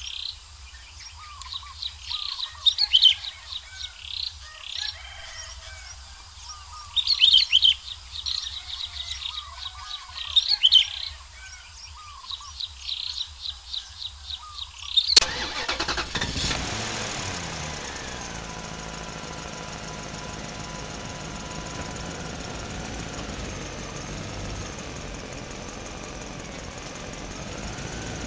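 Small birds chirping in bursts for the first half. About halfway through, a click is followed by a steady engine-like motor hum with several tones that drift slightly in pitch.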